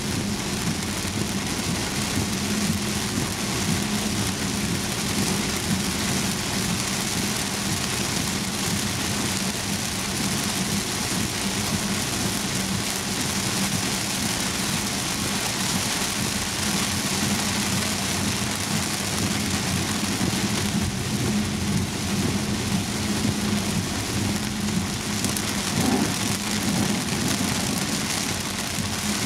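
Heavy rain beating steadily on a Volvo S90's windscreen and roof, heard from inside the moving car, over a steady low hum of the car on the wet road.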